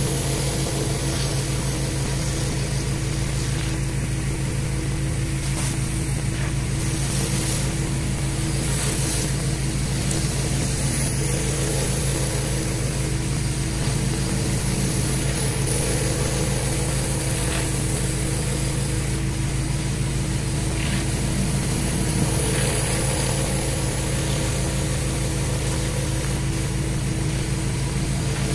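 Pressure washer running steadily while a surface cleaner's spinning spray bar cleans a concrete driveway: a constant low hum with an even hiss of water spray over it.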